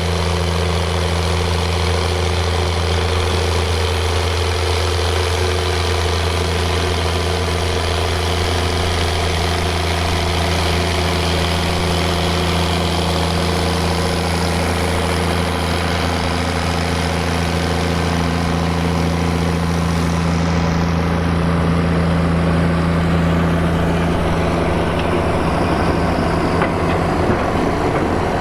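Fiat 110-90DT tractor's diesel engine running at a steady speed, with a deep, even note; near the end the engine note changes.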